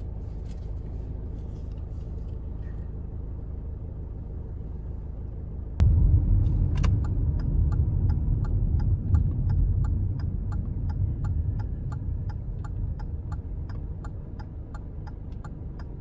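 Low rumble of a car heard from inside the cabin while driving, louder from about six seconds in. From about seven seconds in, a regular click, roughly two to three a second, runs under it: the car's turn-signal indicator ticking.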